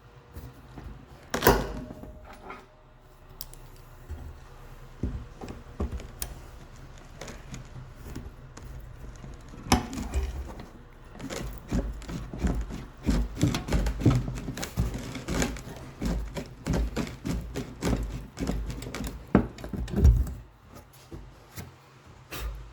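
Vice grips clicking and knocking against the rusted steel retaining fingers of a fuel tank's lock ring as they are worked back and forth to snap them off. The clicks come irregularly, with a sharp knock early on and a dense run of clicks in the second half.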